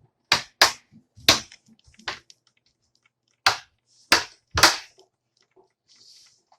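Plastic case panel of an HP 15-cs0061cl laptop being pressed back on, its clips snapping into place in a series of about seven sharp snaps with smaller clicks between.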